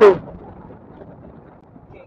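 A brief voice sound falling in pitch at the very start, then low, steady rumbling wind noise on the microphone out on open water.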